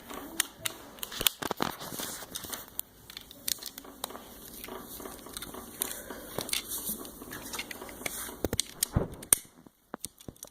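Lego bricks clicking and rattling as they are handled and pressed together, a string of irregular sharp plastic clicks.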